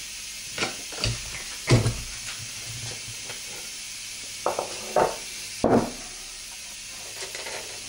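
Metal parts of a G80 locking differential carrier knocking and clinking against each other and the wooden workbench as the case is taken apart, a series of separate knocks over a steady hiss.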